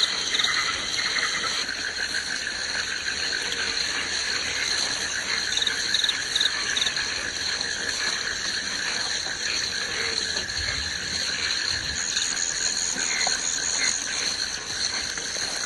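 Steady woodland chorus of calling insects and frogs: shrill trilling at several pitches, with a few short chirps around six seconds in and again near the end.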